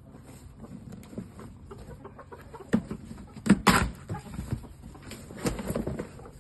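Game chickens clucking, with a run of sharp knocks and rustles, the loudest about three and a half seconds in.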